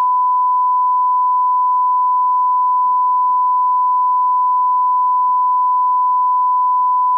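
One long, unbroken censor bleep, a steady 1 kHz tone that cuts off abruptly at the end. It masks a voice message so that a name and a home location are not heard.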